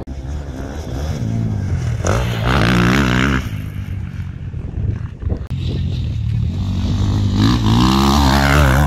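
Motocross motorcycle engines revving hard, the pitch climbing and falling with throttle and gear changes, loudest about three seconds in and again over the last two seconds.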